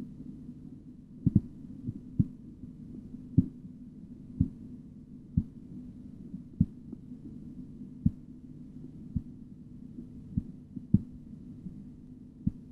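Korotkoff sounds heard through a stethoscope over the brachial artery during an auscultatory blood-pressure reading: sharp taps at roughly one per second, slightly uneven, over a steady low hum.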